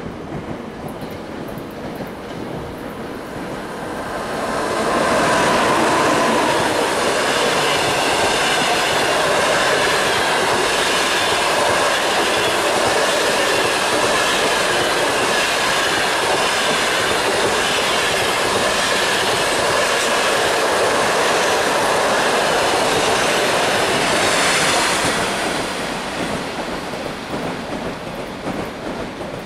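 A passenger train hauled by an EP2K DC electric locomotive passing close by: a loud rush of wheels and rail clatter swells about four seconds in, holds steady as the coaches go past with a thin high squeal over it, then fades near the end as the train draws away.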